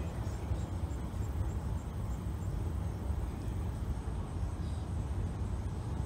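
Outdoor ambience: a steady low rumble with no speech or music.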